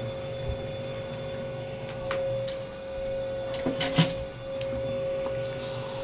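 A steady high-pitched hum runs under a few light clicks and knocks of kitchen utensils being moved on a wet counter, loudest about four seconds in, as spilled dal water is wiped up.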